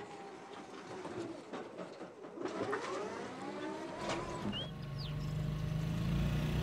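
Birds calling, with wavering calls in the first few seconds and a short chirp later. About four seconds in, an engine comes in and runs steadily with a low hum.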